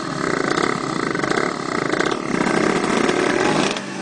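Drag-racing motorcycle engine revving at high rpm, a buzzy sustained note whose pitch wavers.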